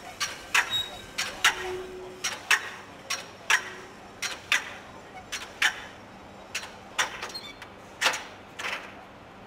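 Metal extension ladder being lowered by its rope, hand over hand: a steady run of sharp metallic clicks and clunks, about one or two a second, as the extending section slides down over the rungs.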